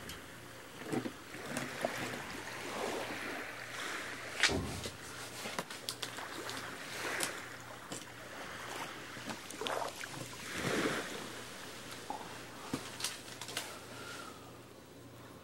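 Irregular rustling and swishing with light clicks and taps: hands handling containers and sprinkling scenery powder and turf onto a model layout.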